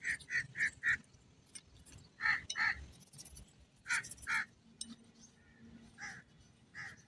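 A bird calling in short repeated calls: a quick run of four in the first second, then more calls mostly in pairs about half a second apart.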